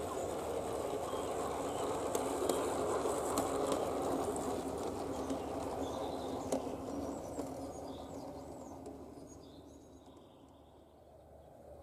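Bachmann G-scale Peter Witt model streetcar running on garden railway track: a steady rumble of wheels on rail and motor with a few light clicks, fading away over the last few seconds.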